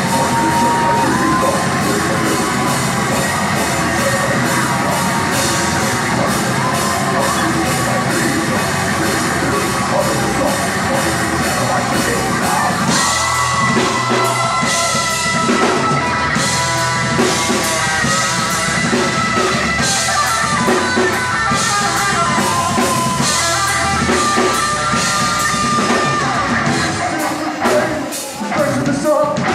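Live horror-punk rock band playing loud: drum kit, electric guitars and vocals, with held lead lines over a driving beat. The music dips briefly near the end.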